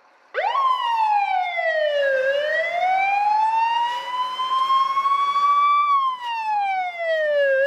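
Fire engine siren sounding a wail. It starts abruptly in the first half second, and its pitch sweeps slowly up and down.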